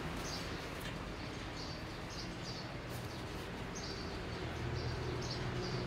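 Small birds chirping in short repeated calls over a steady low hum and background noise, with a couple of faint clicks.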